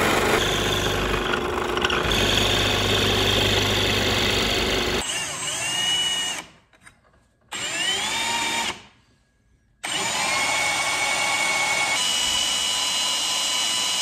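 A drill press bores into a wooden frame piece and then winds down with a falling whine. After a break, a cordless drill spins up with a rising whine and then runs steadily, drilling into the wood.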